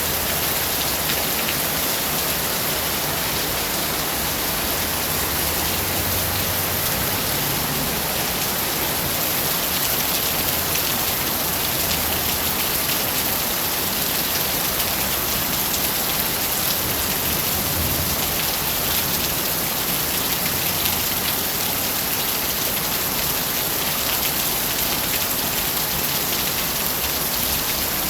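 Steady rain falling, a dense, even hiss with no change in strength.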